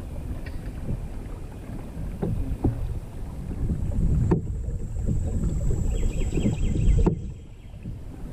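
Wind buffeting the microphone over water swishing along the hull of a Hobie pedal kayak under way, with a few light knocks. The rumble drops and grows quieter about seven seconds in.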